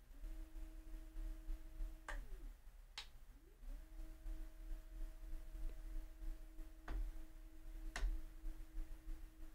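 Zeapon Micro 2 motorized slider's motor running at its third speed setting, giving a faint steady hum. The hum rises in pitch as the motor starts, stops after about two seconds, then starts again a second later and runs on. A few sharp clicks are heard along the way.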